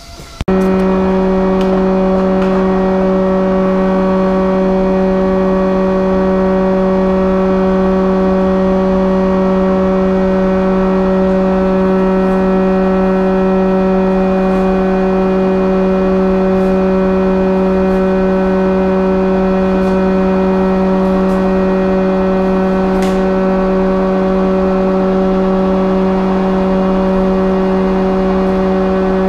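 A loud, steady hum at one fixed pitch, starting suddenly about half a second in and holding unchanged throughout.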